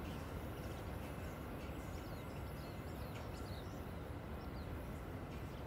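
Steady low outdoor background rumble, with a few faint, short bird chirps about two to four seconds in.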